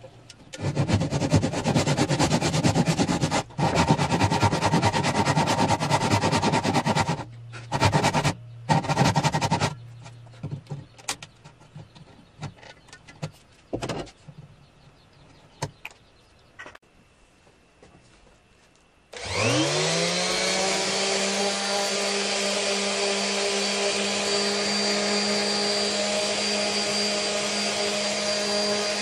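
A power saw with a thin vertical blade rising through a table cuts pine strips in fast strokes, stopping briefly a few times. After a quieter stretch of light clicks and knocks, a random orbital sander spins up with a rising whine about two thirds of the way in and then runs steadily.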